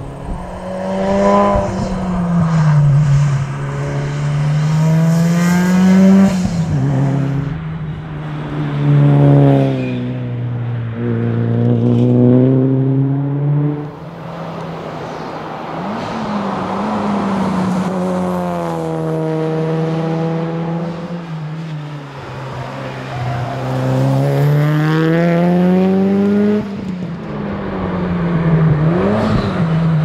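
Mitsubishi Lancer Evolution VIII rally car's turbocharged 2.0-litre four-cylinder engine being driven hard. Its revs climb and fall several times as it accelerates out of and slows for corners.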